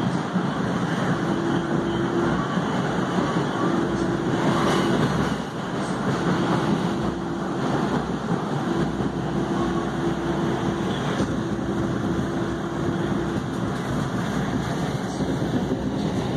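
Inside a new MBTA Red Line 1900-series subway car running through a tunnel: steady rumble of wheels on rail, with a low hum that comes and goes every second or two.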